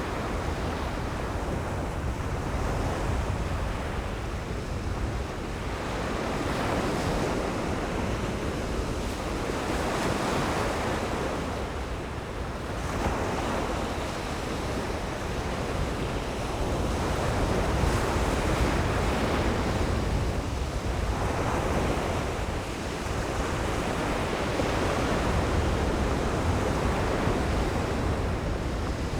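Ocean surf breaking and washing up the beach in rolling swells every few seconds, with wind buffeting the microphone.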